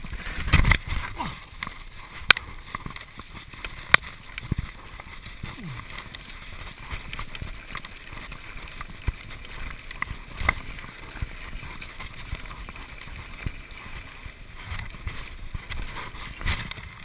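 Mountain bike ridden down a rough dirt singletrack: a steady rushing noise of wind on the microphone and tyres on dirt, with the bike rattling over the ground and a few sharp knocks as it hits bumps.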